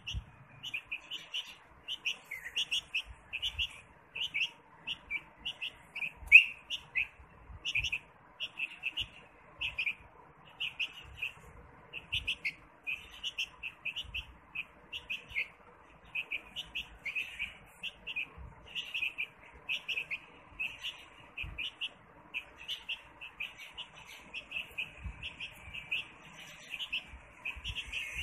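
Baby bulbul chirping: a steady run of short, high chirps, about two or three a second. One sharp tap stands out about six seconds in.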